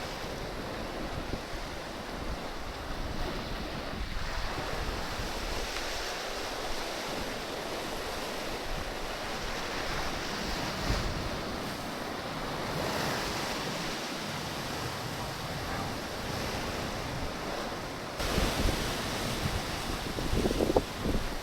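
Sea surf washing in waves with wind buffeting the microphone; the wind rumble gets louder about eighteen seconds in.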